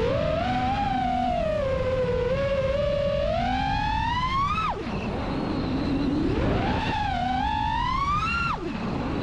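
Brushless motors of a 5.5-inch FPV quadcopter (2208-size, 1750 kV) whining in flight. The pitch climbs as throttle is added, then drops sharply as it is chopped, twice, over a low rushing noise.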